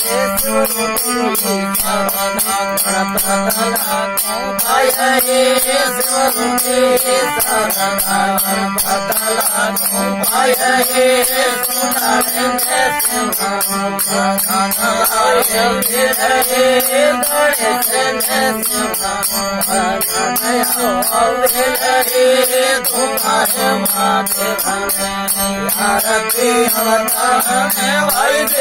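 Marwari folk music: a wavering melody over a steady low drone, with an even percussion beat.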